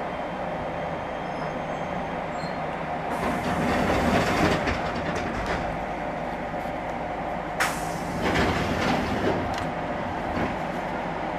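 An electric commuter train standing at a station, heard from the driver's cab: a steady hum of onboard equipment, broken by two louder noisy stretches that start suddenly about three seconds and seven and a half seconds in.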